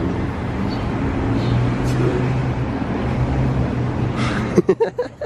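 Steady hum of a motor vehicle engine with road noise. Near the end comes a short run of sharp, loud, voice-like sounds.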